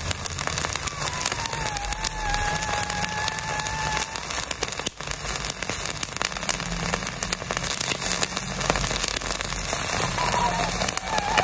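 Raw chicken wing sizzling and crackling steadily under a red-hot iron ball pressed into it, as the meat's juices boil against the glowing metal. A faint thin whistle rises out of the crackle now and then.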